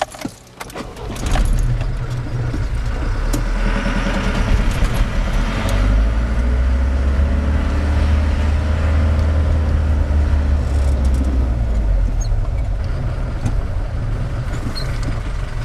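Car running, a loud steady low rumble that starts about a second in.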